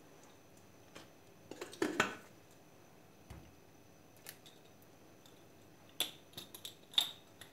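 A spoon and kitchen dishes clinking and knocking in a few scattered strokes, loudest about two seconds in and again near the end.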